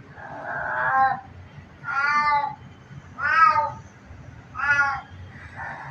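A cat meowing repeatedly: five meows about a second apart, each rising then falling in pitch, the last one fainter.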